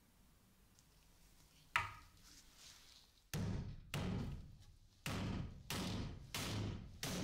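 Steel hammer driving a nail into a wooden board: a sharp first strike with a brief ring, then six hammer blows about half a second to a second apart, each dying away quickly.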